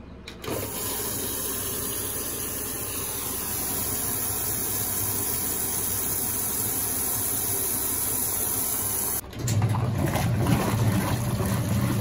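Brastemp Luxo Linea Venezia top-loading washing machine filling with water at the start of its wash cycle, a steady hiss of water running into the tub. About nine seconds in, the hiss cuts off suddenly and a louder, lower, rougher sound takes over.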